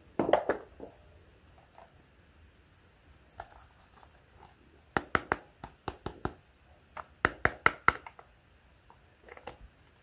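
Hard plastic toy iron clicking and knocking as it is handled and turned over. There is a short clatter at the start, then two quick runs of sharp clicks, about five and seven seconds in.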